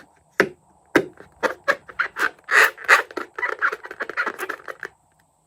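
Slime being squeezed and pressed by hand, making a run of sharp crackles, pops and squelches that grows dense after the first second and stops abruptly near the end.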